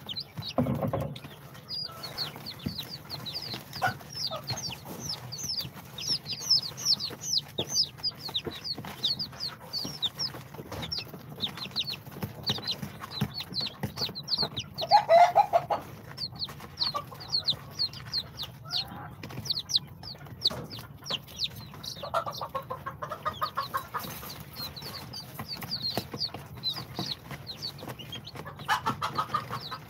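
Day-old chicks of İspenç, Brahma, bantam Cochin and Sultan breeds peeping together in a brooder: many short, high, falling peeps overlapping, several a second, with a louder, lower call about halfway through.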